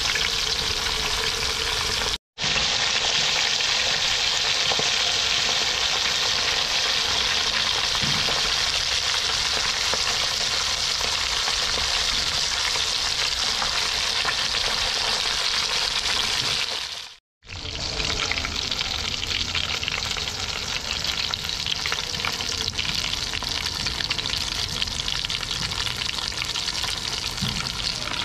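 A whole tilapia deep-frying in hot cooking oil in a kawali (wok), sizzling steadily. The sound cuts out abruptly for a split second twice.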